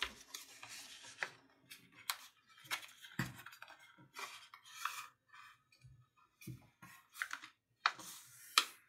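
A sheet of printer paper being folded and creased by hand: scattered soft rustles, crinkles and small taps as the fold is pressed flat.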